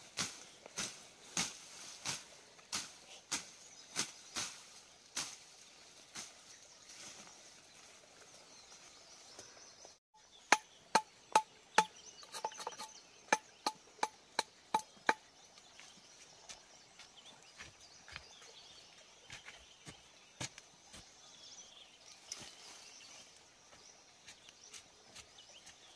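Chopping through undergrowth: a run of steady strikes, about one and a half a second. After a break comes a faster run of about ten sharp machete strikes with a slight metallic ring, the loudest sounds here. Scattered, fainter strikes of a digging tool into soil follow, over a steady high insect hiss.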